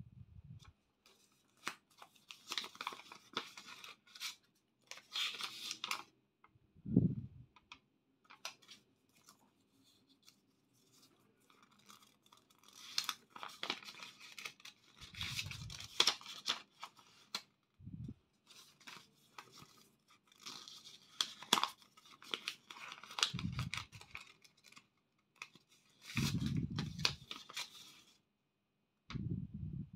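Banknotes and red paper envelopes being handled: repeated rustling and crinkling as notes are folded and slid into the envelopes, with a few dull bumps on the table in between.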